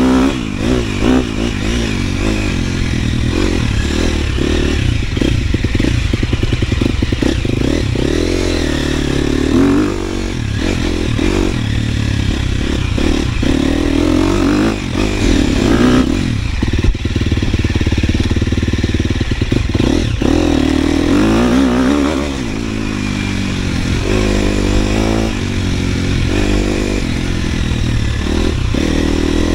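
KTM 250 SXF four-stroke single-cylinder dirt bike engine running hard while being ridden, its pitch repeatedly climbing and dropping as the throttle opens and closes. Frequent knocks and rattles from the bike run through it.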